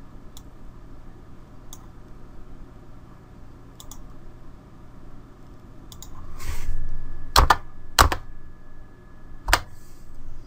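Computer keyboard keys clicking over a steady low hum: a few faint, scattered clicks, then several sharp, louder keystrokes in the second half.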